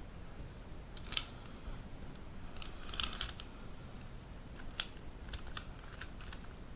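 Light metallic clicks and short scrapes of a SAAB 9-5 ignition lock cylinder's small parts being worked by hand. There are a few separate ones at first, then quicker clicking near the end.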